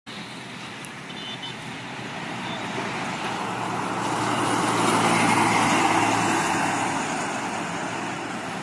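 Volvo B9R sleeper coach passing by at highway speed: engine and tyre noise builds, peaks about five seconds in, and fades as the coach moves away.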